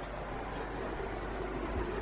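Steady background noise with a constant low hum and no distinct events.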